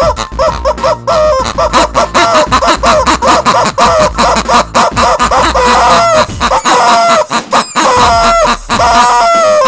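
Rubber squeeze toys squeezed over and over in a fast rhythm, giving short squeaky honks about three a second, ending near the end in a long squawk of a rubber chicken that slowly falls in pitch.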